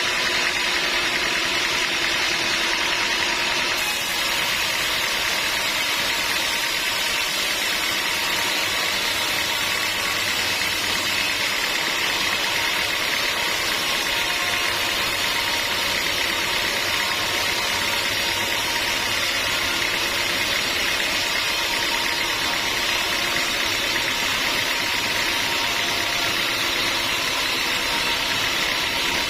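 Sawmill machinery running with a steady mechanical noise, its character shifting slightly about four seconds in.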